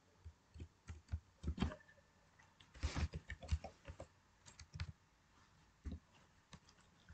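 Computer keyboard being typed on: faint, irregular key clicks, busiest about three seconds in.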